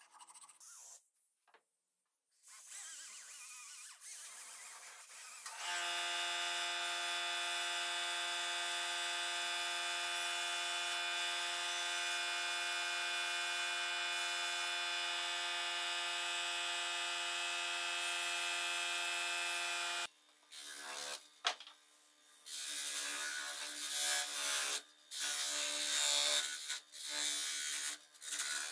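A few strokes of a hand file on brass at the start. Then a small handheld rotary tool with a sanding disc spins up and runs with a steady high whine for about fourteen seconds before stopping suddenly. A bench buffing wheel follows, humming, with uneven rasping bursts as a small brass part is pressed against it.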